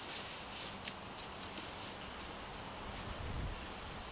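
Faint rustling of a synthetic rope being worked and pulled through a bowline by hand, with one sharp click about a second in. A bird gives two short, high chirps near the end while a low rumble rises.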